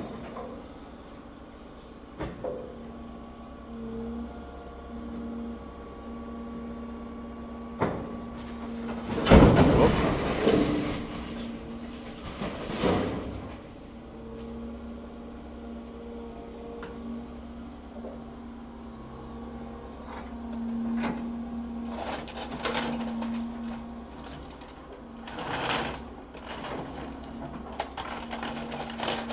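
Excavator engine running with a steady hum and hydraulic whine while demolition debris is loaded into a truck. There are several loud crashes and crunches of rubble dropping, the loudest about a third of the way in and a few more near the end.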